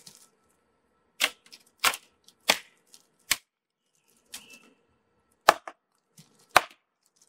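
A wooden stick knocking sharply on a tree trunk: four knocks, a pause, then two more.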